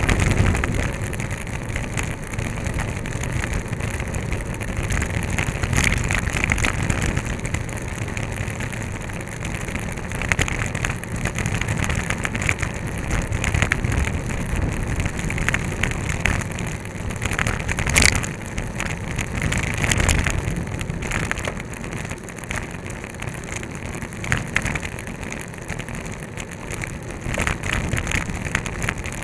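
Wind rushing over the microphone of a camera mounted on a racing bike's handlebars, with steady tyre and road noise and scattered crackles; a sharp knock a little past the middle.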